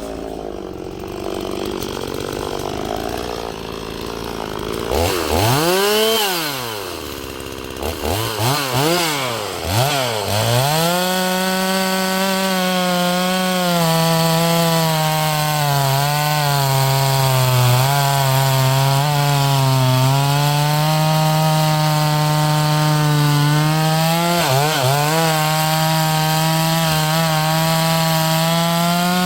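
Holzfforma G260 two-stroke chainsaw revved up and down twice, then held at high revs, pitch sagging slightly under load, as it cuts wood. The revs dip briefly near the end before picking back up.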